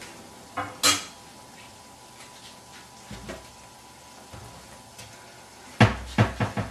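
Metal kitchen utensils clinking against cookware: two sharp clinks about half a second in, a few soft knocks in the middle, and a quick run of louder clatter near the end.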